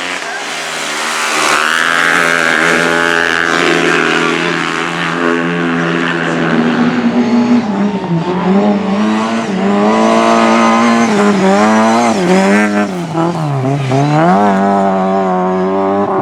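Several speedway motorcycles racing on a cinder track, their 500cc single-cylinder engines running loud. About halfway through the engine notes start dipping and climbing again and again as the riders shut off and open up the throttle.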